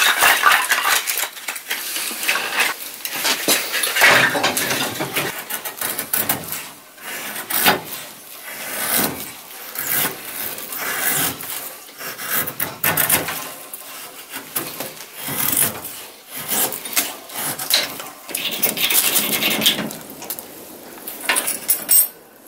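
Split kindling sticks knocking and clattering as they are handled, and a knife shaving thin curls off a stick of wood into a feather stick: repeated rasping, scraping strokes.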